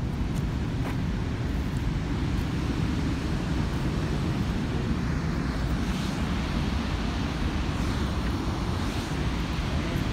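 Wind buffeting the phone's microphone in a steady low rumble, mixed with the even rush of water pouring over a waterfall.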